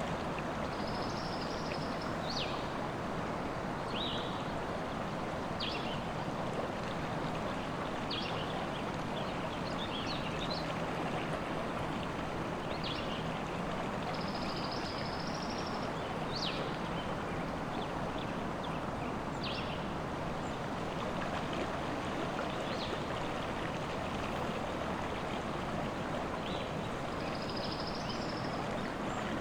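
River water running steadily, with birds giving short chirps and calls at scattered moments above it.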